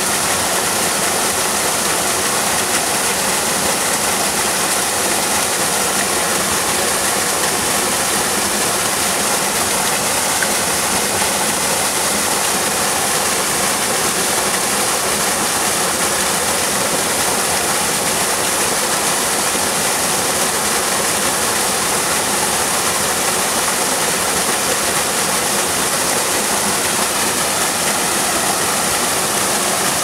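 Small creek waterfall pouring into a rock pool: a steady, unbroken rush of falling water.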